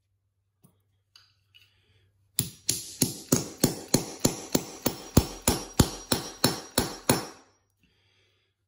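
Hammer driving a 1-inch ram-set nail by hand through wooden carpet tack strip into a pre-drilled hole in the concrete floor. A couple of seconds in come about sixteen quick, even strikes, roughly three a second, over about five seconds.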